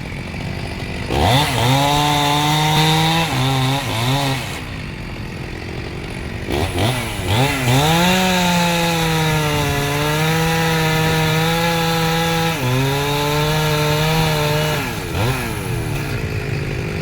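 Two-stroke chainsaw revving up, held at high speed for several seconds, then dropping back to idle, several times over.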